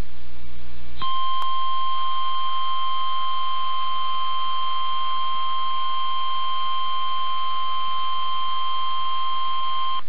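Emergency Alert System attention tone received over AM radio: one steady, loud single-pitched beep that starts about a second in and holds unbroken, announcing the emergency alert that follows. A low hum comes before it.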